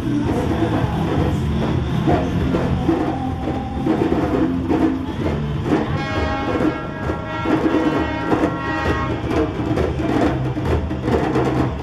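A group of djembe hand drums played together in a steady rhythm of hand strikes. About halfway through, a held note sounds over the drumming for a few seconds.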